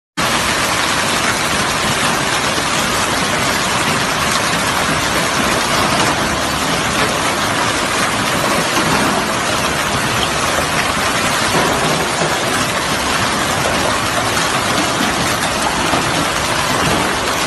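Hail and heavy rain pelting pavement in a loud, steady downpour.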